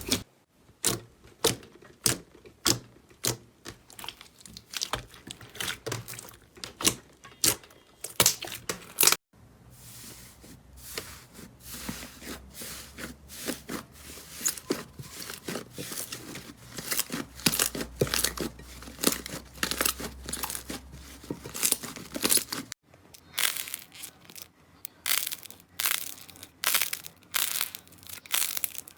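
Slime being pressed and handled: a string of crisp pops and crackles, with sudden cuts about 9 and 23 seconds in.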